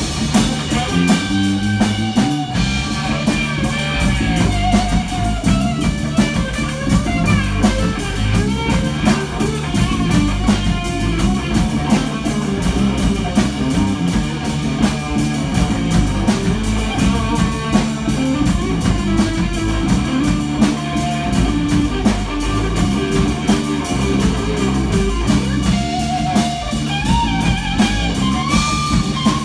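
Live rock band playing, with guitar over a steady drum-kit beat.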